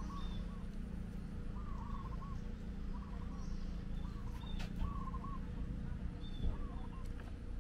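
Birds calling: a short, wavering call repeated every second or so, with faint higher chirps, over a low steady rumble.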